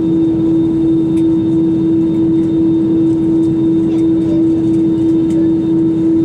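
Steady cabin noise of an Airbus A320-200 heard from a passenger seat: a constant low rumble with one strong steady hum-tone over it.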